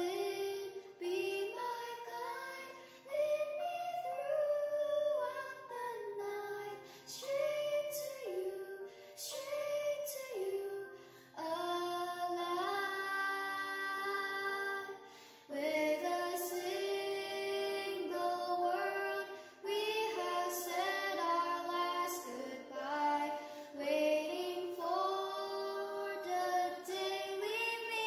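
Background song: a female voice singing a slow, soft melody with long held notes and short pauses between phrases.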